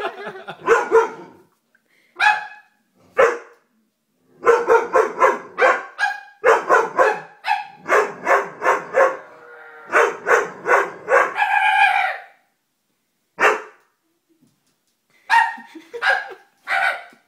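Doberman barking repeatedly, in fast runs of several barks with short pauses between.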